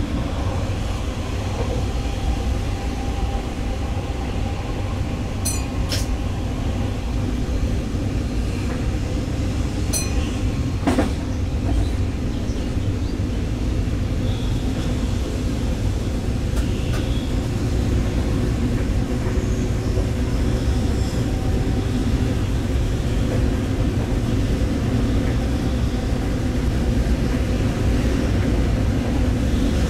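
Stadler GTW 2/6 diesel multiple unit running along the line, a steady low rumble of engine and wheels on rail. A few sharp clicks come between about five and eleven seconds in.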